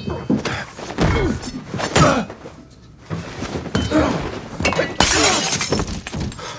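Film fight sound effects: a run of blows and thuds, then a burst of breaking glass about five seconds in.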